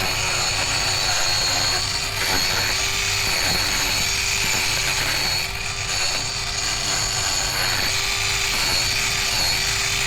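Mini angle grinder running steadily with a high whine while grinding down an overgrown miniature horse hoof, the grinding note breaking and resuming every second or so as the disc is worked over the hoof.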